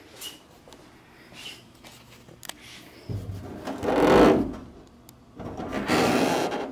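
Plastic push-in clips being tugged and pried out of the underside of a Jeep TJ hood: a few light clicks, then two long bursts of scraping and rattling, the first about three seconds in and the second near the end.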